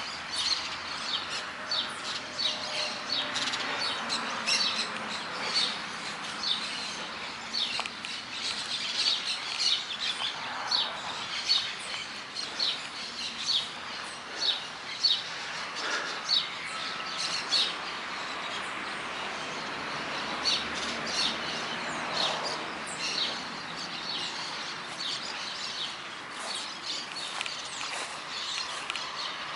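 Many birds chirping and singing at once in a morning chorus, rapid short high chirps repeated throughout over a steady hum of town background noise.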